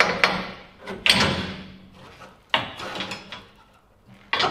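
Knocks and clunks of a steel coil spring being handled and seated into a pickup's rear suspension, about five separate hits, the loudest about a second in, some with a brief metallic ring.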